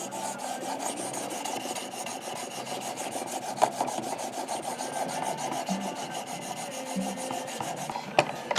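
Leatherman Free T4 knife blade stroked quickly and evenly back and forth across the ceramic hone of a Work Sharp guided sharpener, a steady scraping rasp. This is the final fine-honing stage after the diamond plates.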